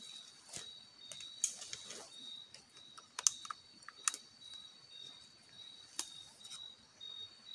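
Night forest insect chirping: a high-pitched call repeated in short, even pulses. A handful of sharp clicks are scattered through it, the loudest about three seconds in.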